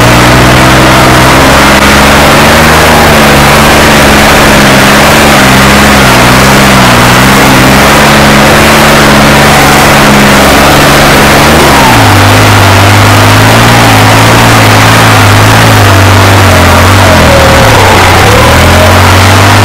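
The New Holland 3630 tractor's diesel engine, fitted with a modified injection pump and turbo, running loud with a slightly wavering note. Its note shifts lower about twelve seconds in.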